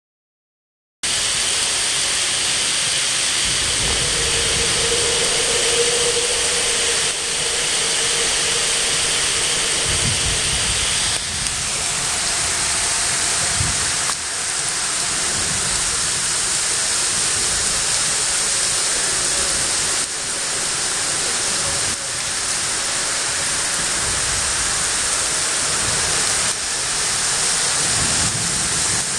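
Heavy rain pouring down onto a lake's surface: a dense, steady hiss that starts about a second in.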